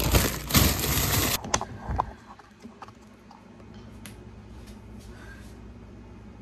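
Plastic freezer bags of frozen fruit rustling and crinkling as they are pulled out of a freezer, then an abrupt cut to quiet room tone with a few light clicks and knocks.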